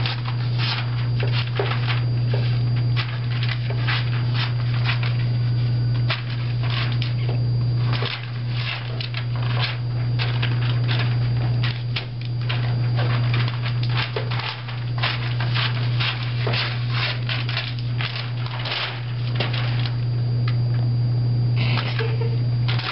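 Scissors snipping through a paper map in quick, irregular cuts, with paper rustling and crinkling as it is handled. A steady low hum runs underneath throughout.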